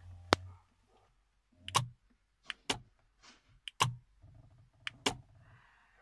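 Sharp mechanical clicks, about seven spread irregularly over six seconds, several with a dull thud beneath them, from the switch-and-actuator rig fitted to a McHale Fusion 2 baler control box for remote bale ejection.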